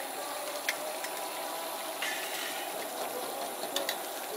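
Food sizzling steadily in a hot wok over a gas burner, with a few sharp clinks of the metal ladle against the wok.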